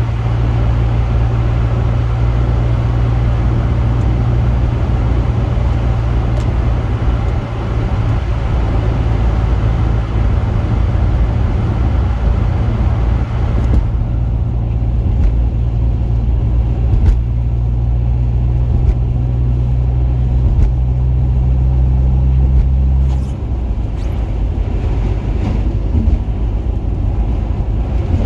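Car engine and road noise: a steady low drone that eases off about 23 seconds in.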